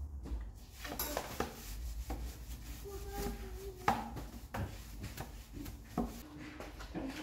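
Scattered light knocks and taps as a small wooden shelf unit is handled, with the loudest knock near the middle.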